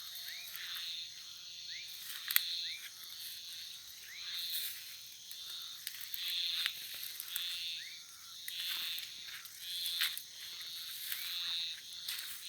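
Night chorus of frogs and insects. A pulsed call repeats about once a second, with short rising chirps between the calls and a steady high-pitched drone underneath. A single sharp click comes a little over two seconds in.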